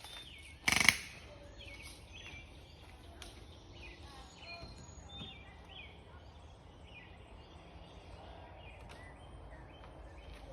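A single airgun shot less than a second in: a sharp crack with a short tail, the loudest thing by far. Birds chirp lightly the whole time over a low outdoor background.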